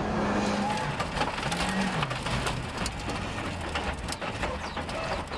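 Rally car engine running, with many sharp clicks of gravel and stones against the car.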